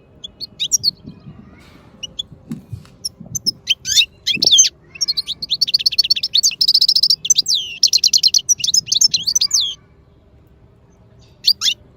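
Small parrots chirping: scattered short high chirps at first, then rapid runs of repeated chirps from about five seconds in, stopping a little before ten seconds.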